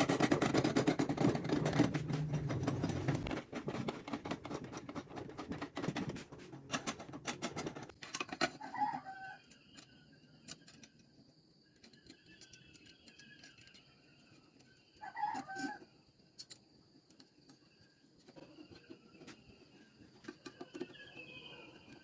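A machine runs loudly with a low hum that cuts off about three seconds in, followed by light clatter that fades out. Then a rooster crows twice, about six seconds apart, over faint small-bird chirps.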